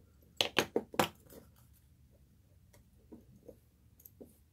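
Handling noises from wire crafting: a quick run of four sharp clicks and knocks about half a second in, then a few softer taps, as wire and tools are handled around a glass bottle.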